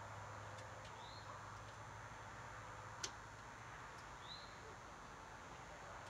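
Faint small clicks and one sharper click about three seconds in as hands work on an air-conditioner condenser unit, over a low steady hum. Two short bird chirps, about a second in and again past four seconds.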